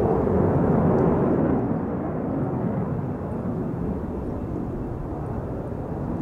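Jet noise of a JF-17 Thunder fighter's Klimov RD-93 turbofan, afterburner lit, as it manoeuvres overhead. It is a loud, steady rush that eases a little after the first second or so.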